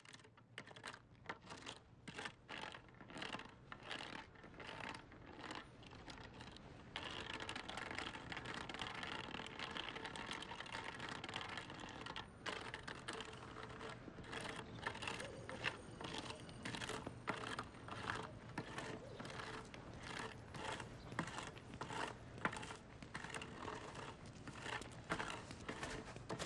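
Quick, irregular clicks and scrapes, a few a second, over a steady street background that gets louder about seven seconds in.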